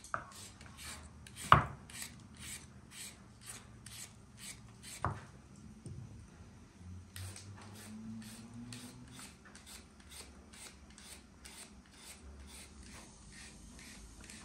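Hand vegetable peeler scraping the skin off a raw potato in quick repeated strokes, about three a second, with a pause partway through. A sharp knock about a second and a half in, and a smaller one near the middle.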